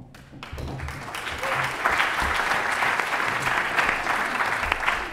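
Audience applauding: many hands clapping, starting just after the answer ends, swelling over the first second or two, then holding steady.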